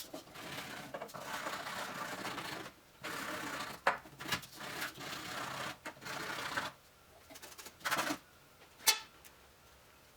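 Hard watercooling tube being worked by hand: rasping strokes in runs of one to two seconds, then a couple of short scrapes near the end.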